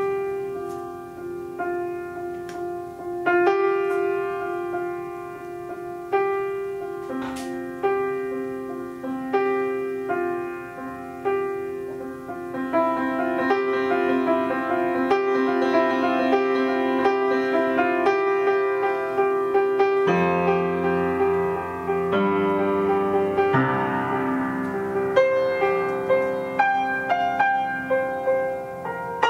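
Live instrumental music led by piano: a note repeated again and again under sparse chords, the playing thickening into fuller, denser chords through the second half.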